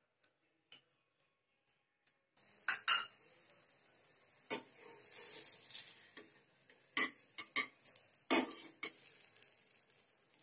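Butter sizzling under an aloo paratha frying on an iron dosa tawa, starting about two seconds in. Over the sizzle come a series of sharp taps and scrapes of a metal spatula against the pan as the butter is spread.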